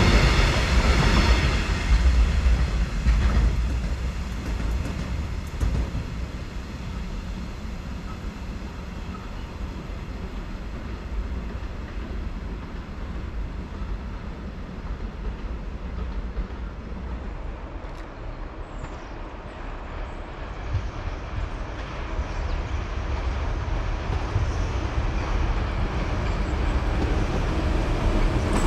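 Train running by on the tracks, loud at first, fading to a steady low rumble, then growing louder again near the end.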